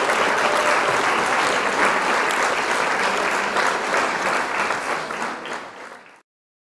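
Audience applause, many hands clapping in a dense patter, fading down near the end and cutting off abruptly about six seconds in.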